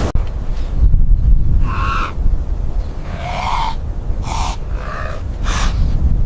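Four or five short hooting animal calls, about a second apart, over a steady low rumble like wind.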